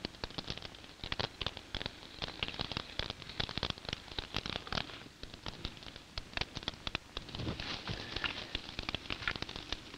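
Wood and brush fire crackling, with dense, irregular sharp pops and snaps.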